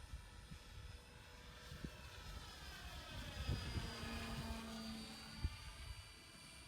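Radio-controlled model biplane's motor and propeller droning overhead, getting louder and shifting in pitch as it passes about four seconds in, with gusty wind rumbling on the microphone.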